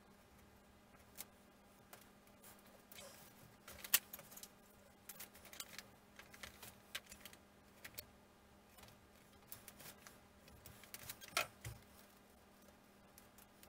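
Light, irregular clicks and taps of small balsa and plywood kit parts being handled and fitted into a model aircraft wing frame, the sharpest about four seconds in and again about eleven seconds in, over a faint steady hum.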